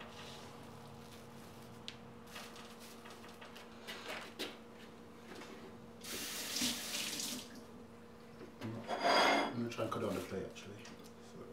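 Kitchen tap running in two short spells, about six and nine seconds in, as the knife is wetted between cuts through a sushi roll. Before that, a few faint knocks of the knife slicing the roll.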